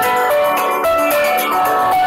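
Background music: an upbeat instrumental with a melody of short pitched notes over a steady beat.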